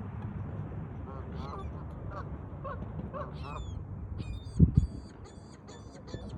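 A bird calling in a series of short honking notes over a steady low rumble, followed by a quick run of high, evenly spaced notes; a single loud thump about four and a half seconds in.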